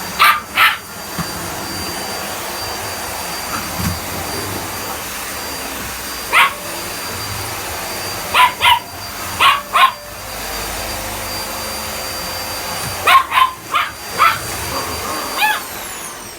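A Chihuahua–Dachshund mix puppy barks at a running vacuum cleaner, with sharp yaps in short bursts of one to about five. The vacuum's steady whine winds down near the end.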